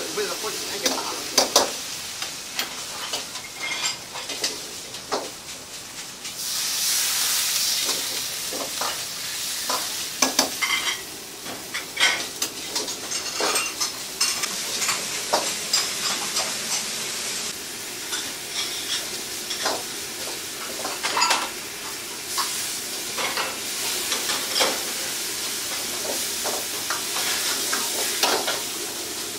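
Wok stir-frying over a high gas flame: a steady sizzle with frequent clinks and scrapes of the metal ladle against the wok. The sizzle swells louder about six seconds in for a couple of seconds.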